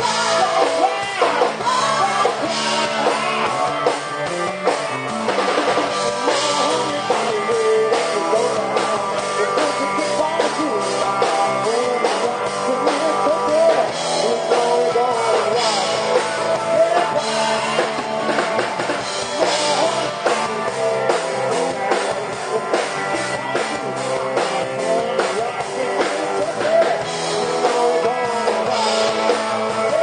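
A rock band playing live: a man singing over electric guitar, bass guitar and a drum kit.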